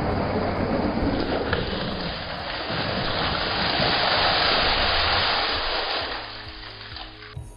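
Steady rush of water gushing out, as from a rebuilt submersible water pump's outlet on a test run.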